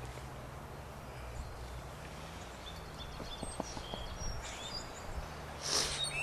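Outdoor ambience: a steady low hum with birds chirping a few times in the middle, and a short rustling burst near the end.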